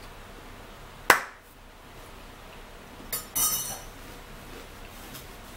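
A sharp clink of tableware on a hard surface about a second in, then a short crackling rustle about three seconds in.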